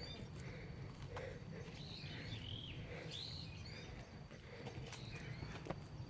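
Birds calling: short, curved, squeaky calls repeated about once a second, over a low steady background rumble.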